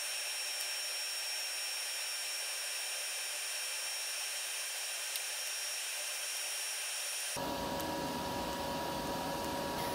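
Straight-DC TIG welding arc from a Blue Demon BlueArc 200STI inverter welder, hissing steadily with a faint high-pitched whine, at roughly 165–170 amps under foot-pedal control; the arc is smooth. A lower hum joins about seven seconds in.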